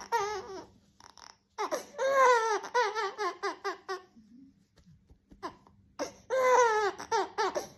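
A baby or small child's high-pitched crying and squealing, with laughter-like pulses. It comes in two bursts with a pause between them. Each burst opens with a long falling wail and breaks into short pulses about four a second.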